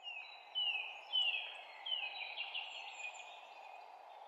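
Birds chirping in a spring forest: a string of quick falling chirps and trills, loudest in the first two seconds, over a steady rushing background.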